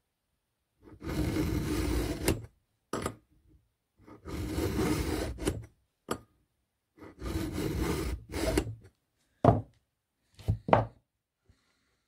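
Round chainsaw file in a file-guide holder, pushed by hand through a chain cutter in three long rasping strokes of about a second and a half each, with a short knock after each stroke. A few sharp clicks follow near the end.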